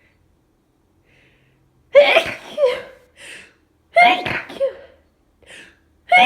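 A person sneezing in quick succession from allergies. After a quiet start come two loud sneezes about two seconds apart, with short breaths between them, and a third sneeze begins at the very end.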